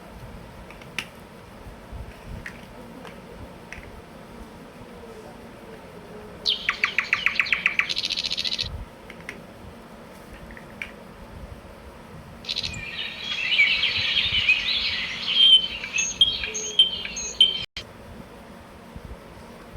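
A bird calling: a rapid run of chirps, about eight a second, near the middle, then a longer stretch of chattering, warbling song toward the end.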